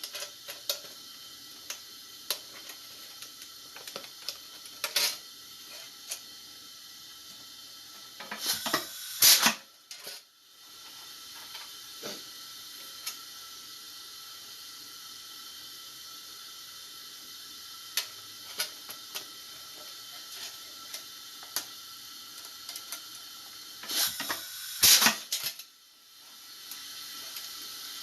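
Pneumatic air riveter, worked by a foot pedal, pressing aluminium rivets twice: each time a loud burst of air and metal clanks, about a third of the way in and again near the end. Between them a steady hiss comes from the riveter's leaky valve, with small metallic clicks as rivets and the tray panel are handled.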